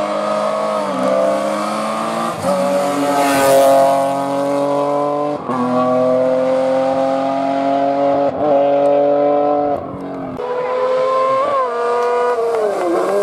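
Race car engines accelerating hard up a hillclimb course, held at high revs with several short dips at gear changes as successive cars pass.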